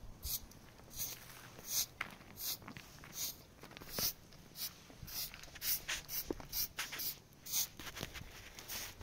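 Repeated scraping strokes, each a short hiss, coming about one and a half to two times a second, at an uneven pace.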